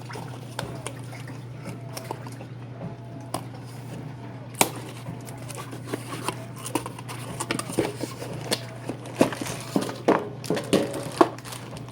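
A cardboard subscription box being opened by hand: scattered taps, scrapes and rustling of the packaging. One sharper knock comes about a third of the way in, and the handling grows busier in the second half.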